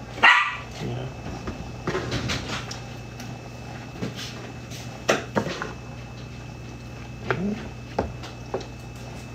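Kitchen clatter: a sharp bang about a quarter-second in, then scattered knocks and clinks of cookware and cupboards being handled, over a steady low hum.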